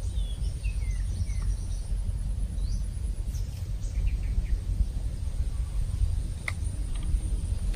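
Birds giving short falling chirps several times over a steady low rumble, with two sharp clicks near the end.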